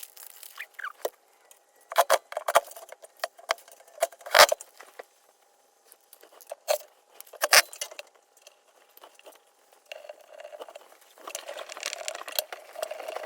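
Hard objects being handled: scattered clicks, taps and knocks, the loudest about four seconds in, turning to a scratchy rustling in the last few seconds.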